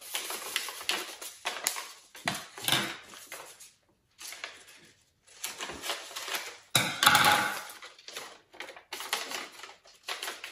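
Gold foil paper crinkling and rustling as it is handled and folded around a headband, with scissors cutting through the foil around the middle. The crackling comes in irregular bursts with short pauses, loudest about seven seconds in.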